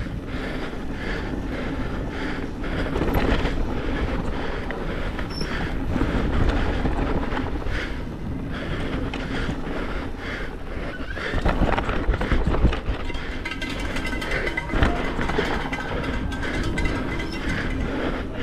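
Downhill mountain bike descending a rocky course at race speed: steady rattle and clatter of the bike, chain and tyres over rock, with low wind rumble on the helmet-camera microphone. A few harder hits stand out, the sharpest a little past the middle.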